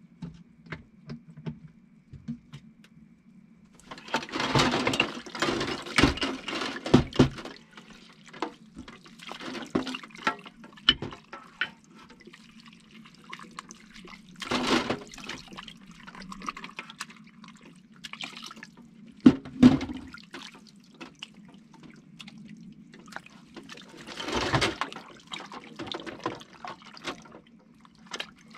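Dishes being washed at a kitchen sink: tap water runs in several short spells, with knocks and clinks of dishes and utensils in between, over a steady low hum.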